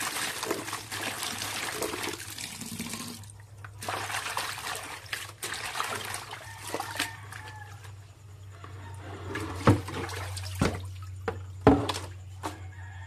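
Tap water running into a plastic basin while hands swish and rub kangkong (water spinach) leaves in it. Near the end come a few sharp knocks.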